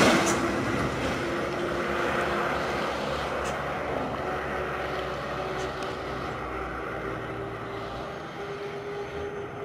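Diesel engines of loaded trucks labouring uphill: one passing close fades as it pulls away up the climb, while another drones steadily as it climbs toward the road's edge.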